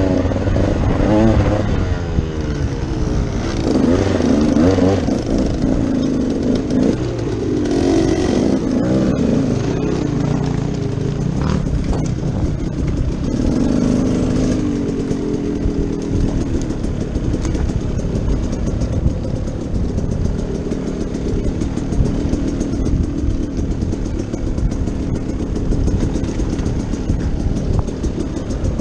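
Dirt bike engine running under load while riding, its pitch rising and falling as the throttle opens and eases off, steadier in the second half.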